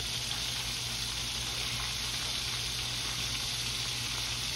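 Breaded catfish fillets deep-frying in hot oil in a wok: a steady sizzle.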